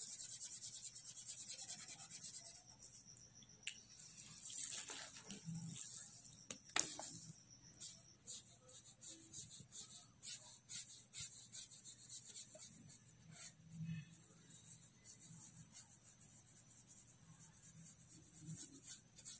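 Felt-tip sketch pen scratching on paper in many quick, short strokes as hair lines are shaded in.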